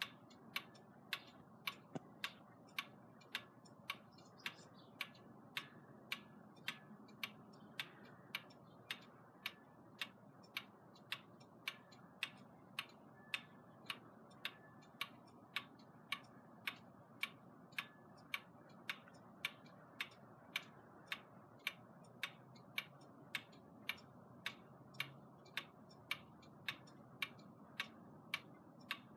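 Chinese pendulum wall clock (8-day or 31-day movement) ticking with a steady, even beat: sharp escapement clicks, more than one a second, with no strike of the gong.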